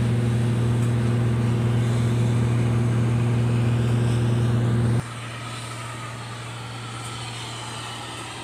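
Steady drone of construction machinery engines running at a constant speed, with one even, unchanging pitch. About five seconds in it drops suddenly to a quieter level and then carries on steadily.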